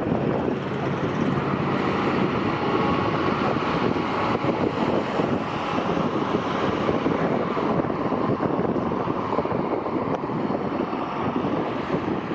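Wind buffeting the microphone over the steady rumble of passing highway traffic.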